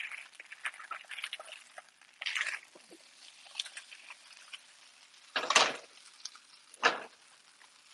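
Metal spatula scraping and tapping on a stone-coated grill pan as pieces of millet dhokla are turned over while they fry, with faint crackling underneath. A short scrape about two seconds in, then two louder knocks, one about five and a half seconds in and one near the end.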